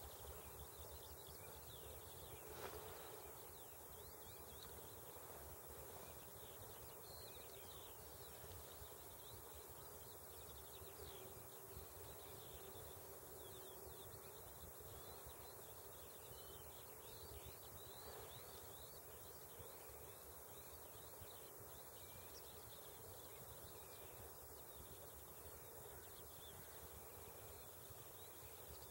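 Faint, distant birds calling: a dense scatter of short high chirps over a low background hiss.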